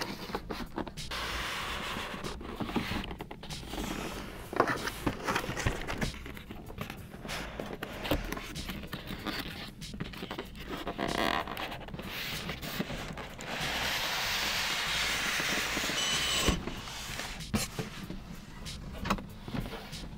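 Styrofoam packing case sliding and scraping against the inside of a cardboard box as it is pulled out, with the box flaps rustling and knocks from handling; one longer, steady scrape comes about two-thirds of the way through.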